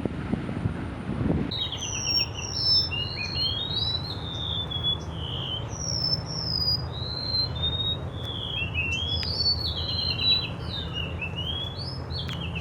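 Songbird singing: a dense run of quick high chirps and down-slurred whistles, starting about a second and a half in, over a steady low rumble.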